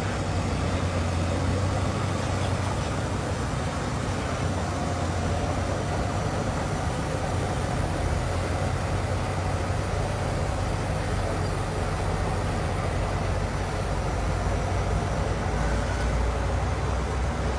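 Heavy diesel engine of a paddle (elevating) scraper running steadily: a continuous low hum under a wash of mechanical noise.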